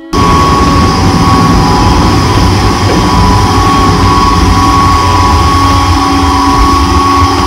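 Loud, steady machinery noise of a container ship heard on an outside deck: a constant drone with a steady whine, under a low rumble of wind on the microphone. It starts suddenly at the beginning.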